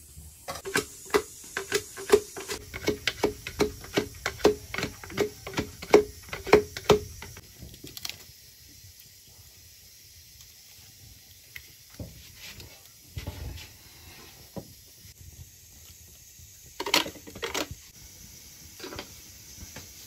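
A quick, even run of sharp knocks, each with a short ringing tone, about three a second for roughly seven seconds. Then a few scattered knocks and a brief clatter near the end.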